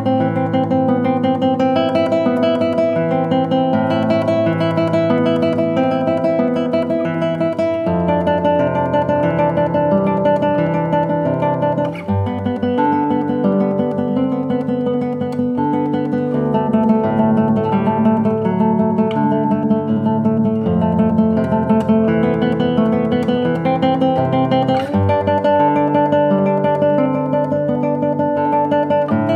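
Nylon-string classical guitar playing a tremolo piece at a slow tempo: a thumb-plucked bass note on each beat under a quickly repeated treble note from the fingers, so the melody sounds as a sustained line.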